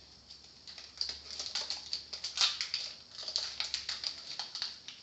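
Foil wrapper of a Pokémon trading-card booster pack crinkling and crackling as it is opened and handled, in many quick, irregular crackles.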